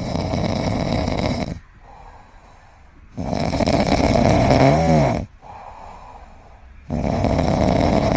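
A pet snoring loudly: three long rasping snores about three and a half seconds apart, the middle one ending in a tone that rises and falls.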